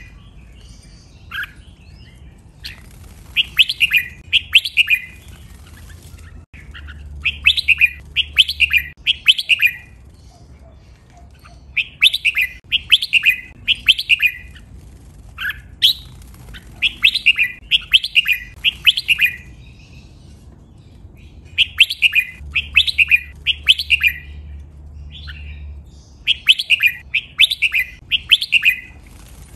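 Red-whiskered bulbul song: short phrases of several quick, clear, whistled notes, repeated about every four to five seconds. It is a recorded training song of the kind played to teach caged bulbuls to sing.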